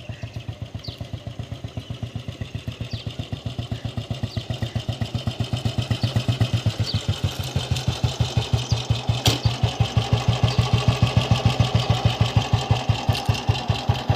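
1974 Royal Enfield Bullet's single-cylinder four-stroke engine idling, with an even dug-dug beat of exhaust pulses through a mesh-baffled silent-type silencer. It grows louder about halfway through.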